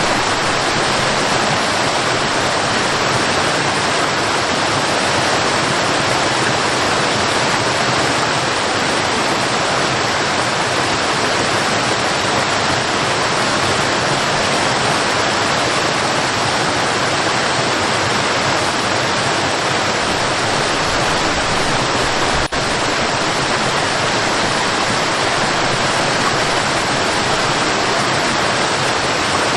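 Waterfall: water falling and crashing in a steady, continuous rush, with a brief dropout about two-thirds of the way through.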